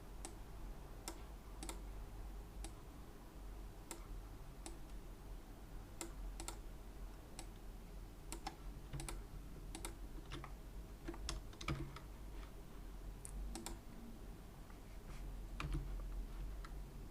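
Faint, irregular clicking of a computer mouse and keyboard, roughly one or two clicks a second, over a low steady hum.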